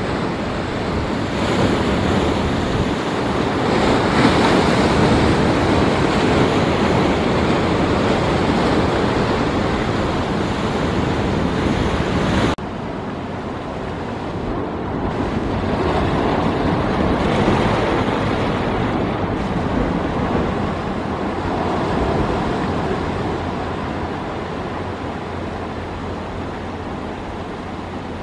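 Sea surf breaking and washing among rocky shore boulders: a continuous rush of water that swells and ebbs, dropping abruptly in level about twelve seconds in.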